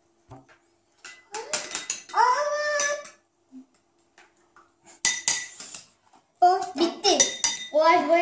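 Metal spoons clinking and scraping against small glass bowls while paint is stirred into glue, with a ringing clink about five seconds in. Children's voices come in twice, including a drawn-out vocal sound about two seconds in.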